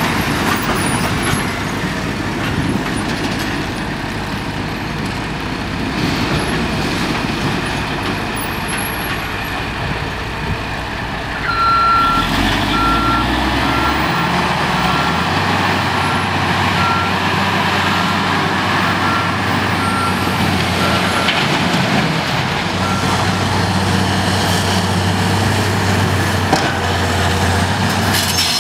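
Diesel engine of an O&K K50 quarry dump truck running as the truck drives. About eleven seconds in it gets louder and a reversing alarm starts beeping at one steady pitch, about one beep a second, for some ten seconds as the truck backs up to the shovel.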